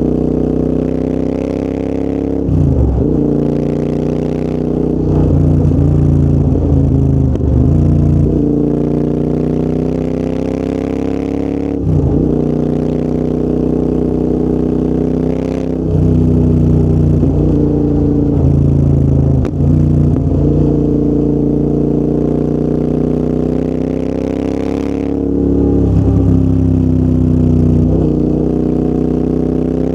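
Royal Enfield Interceptor 650's parallel-twin engine running through a full TEC exhaust system while ridden. The exhaust note climbs slowly in between and dips sharply then recovers about ten times as the throttle is closed and reopened.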